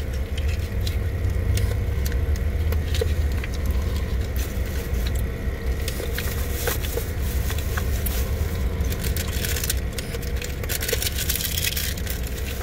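Steady low hum of a car idling, heard from inside the cabin, with scattered clicks and rustling of packaging being handled. The rustling grows busier in the last few seconds.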